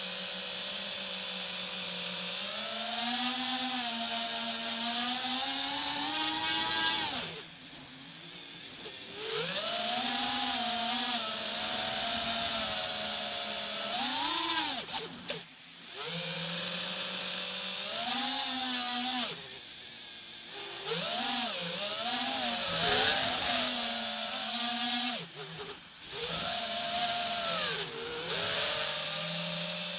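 FPV racing drone's brushless motors whining, the pitch rising and falling with the throttle and dropping away several times as the throttle is cut, with one sharp click about halfway through.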